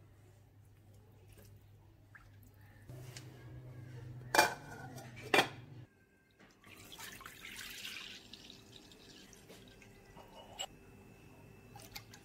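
Two sharp knocks about a second apart, then milk poured from a carton into a ceramic bowl, splashing for a couple of seconds.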